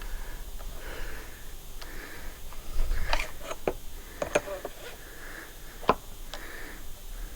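Hand-work noises on a brushcutter: a scattered series of small clicks and light knocks as parts and tools are handled, with a cluster of them in the middle and a single sharp click about six seconds in, and soft breathing close to the microphone.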